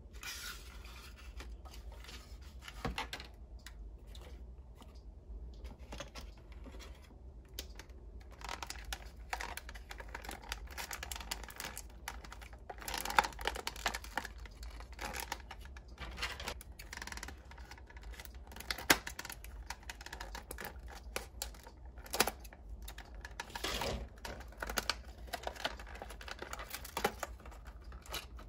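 Hands unwrapping and handling small plastic toy pieces and their packaging: crinkling and tearing of plastic film, rustling, and many small clicks and taps of hard plastic. There are a few sharper clicks about halfway through and again later.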